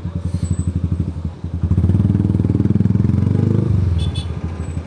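Yamaha Byson's single-cylinder four-stroke engine running at low revs in stop-and-go traffic, opened up for about two seconds in the middle and then eased back off.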